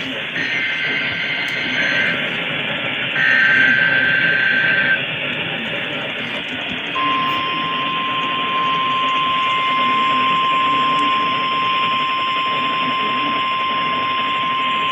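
NOAA Weather Radio weekly test tones heard through heavy receiver static. Two short bursts of warbling SAME digital header tones come in the first five seconds. About seven seconds in, the steady single-pitch warning alarm tone comes on and holds.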